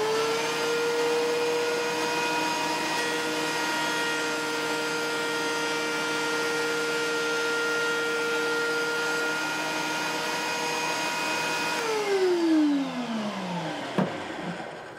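Woodworking planer running at full speed with a steady motor whine. About twelve seconds in it is switched off, and the whine falls in pitch as it spins down, ending with a click.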